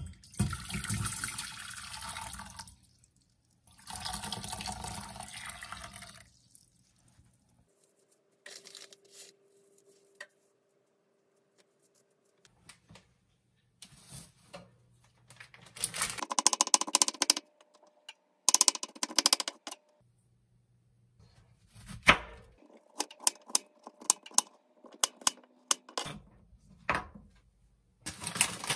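Water poured from a glass measuring cup into a stainless steel pot, in two pours of about two to three seconds each. Then quieter kitchen handling, dry spaghetti being sorted out, with a few sharp clicks and knocks.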